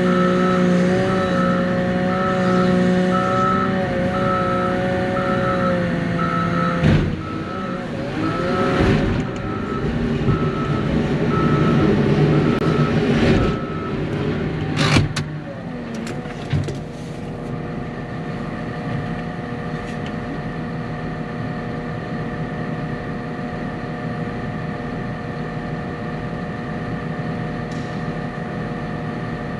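A vehicle engine running, with a beep repeating a little more than once a second for about the first half. The middle is louder and noisier with a few knocks, and from about halfway the engine settles into a steady, even hum.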